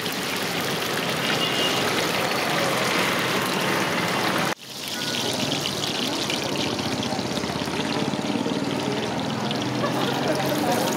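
Raw banana bajji frying in a kadai of hot oil: a steady sizzling hiss that cuts out briefly about halfway through.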